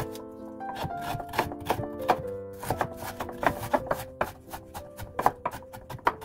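Chef's knife chopping green onion on a wooden cutting board: quick, irregular knife strikes against the board as the onion is minced, with background music playing.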